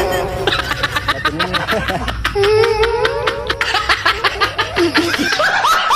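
A person's loud, rasping vocal sounds in rapid pulses, coming in bouts of about a second and a half with short breaks between them.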